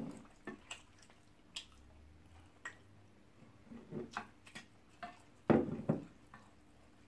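Close-up eating sounds: scattered clicks of a fork on a ceramic plate, wet squishing of fingers in thick ogbono soup, and chewing. The loudest burst comes about five and a half seconds in.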